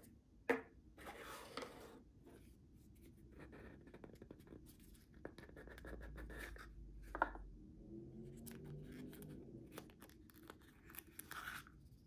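Small cardboard keycap boxes and their lids being handled: card and foam rubbing and scraping as the boxes are turned and opened, with a sharp tap about half a second in and another a little past the middle.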